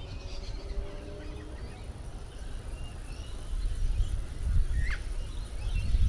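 Small birds chirping in woodland, short calls scattered throughout, with one quick falling call about five seconds in. Wind rumbles on the microphone throughout and grows stronger in the second half.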